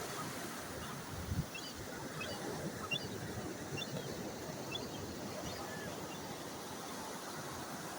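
Steady wash of surf and wind on the microphone at the beach, with a few faint short high chirps in the middle and a couple of brief bumps about a second and a half and three seconds in.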